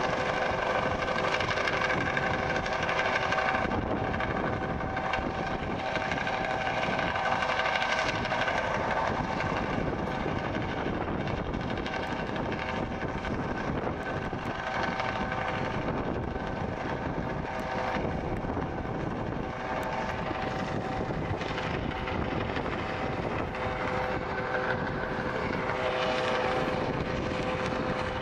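A US Coast Guard MH-65 Dolphin helicopter hovering and manoeuvring, its twin turbines giving a steady whine over the rotor noise. The whine weakens through the middle as it moves off and comes back stronger near the end.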